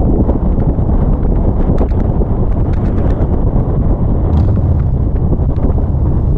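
Wind buffeting the microphone on a moving Harley-Davidson Street Glide, with the bike's V-twin engine running steadily underneath.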